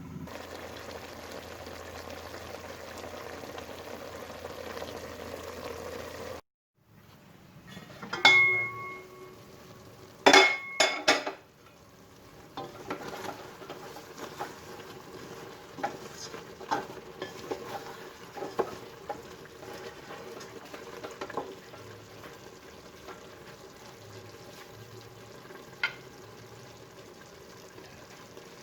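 Cooking in a metal pot: a few loud, ringing clangs of a metal utensil or lid against the pot, then repeated light scraping and tapping of a spoon as food is stirred, with a steady sizzle underneath.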